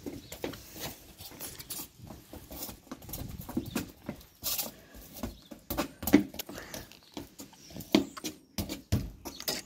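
A football being worked with the feet on stone patio slabs: irregular soft kicks, taps and bounces of the ball mixed with trainers scuffing and stepping on the paving, with a few louder touches about six and eight seconds in.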